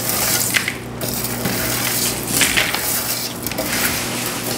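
Dry baked Chex Mix rustling and crunching as handfuls are scooped and swept across aluminum sheet pans and tipped into a plastic bucket.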